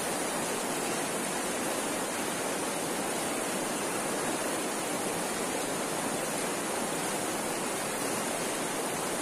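Shallow, rocky river rushing steadily over stones: an even, unbroken sound of flowing water.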